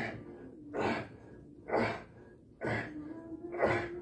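A man breathing out hard with each repetition on a cable machine, a sharp breath about once a second, five in all. Faint background music holds steady notes underneath.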